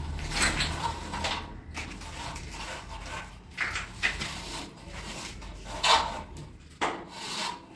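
Short scraping and rubbing sounds, a few seconds apart, as a long straight edge is held and shifted against a rough plastered wall and a line is marked along it.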